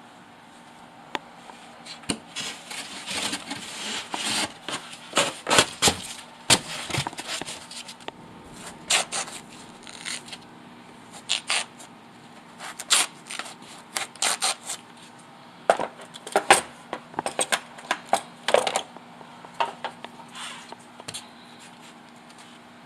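Hand work on a small fitted piece: irregular clinks, taps and short scrapes of tools and material being handled, coming in quick clusters with short pauses between.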